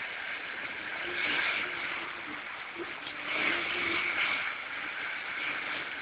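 Muddy floodwater rushing past in a steady, noisy flow.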